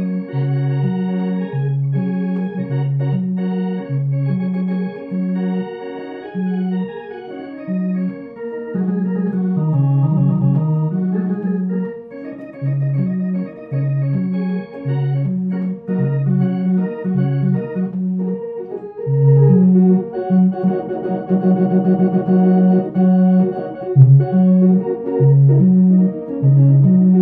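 Home electronic organ playing a blues: a bass figure rocking between two low notes in a steady rhythm under chords and a right-hand melody. It grows louder and fuller about two-thirds of the way in.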